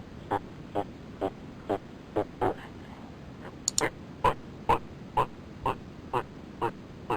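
An animal giving short, repeated calls, about two a second, with a brief pause a little before the middle.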